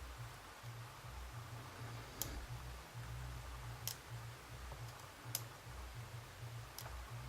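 Lock pick working the pins of a Pfaffenhain pin-tumbler cylinder during single-pin picking: four sharp, light clicks about a second and a half apart, over a faint low hum.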